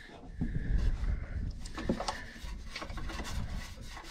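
Quiet rubbing and handling noise of hands and a box wrench working against the Onan engine's sheet-metal blower housing, with a few light clicks.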